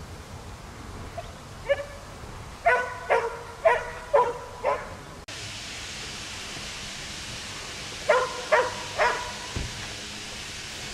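A dog barking: a quick run of six short, high barks, then after a pause three more.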